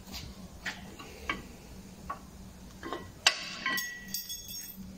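Front brake disc of a VW Caddy Mk1 being worked off the wheel hub: a series of light metallic taps, then a sharp clank a little over three seconds in as it comes free, with the metal ringing for about a second and a half.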